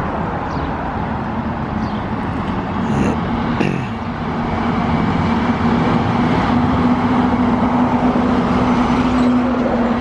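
School bus diesel engines driving past in traffic; one goes by about three seconds in with a quickly falling pitch, then a steady engine note holds.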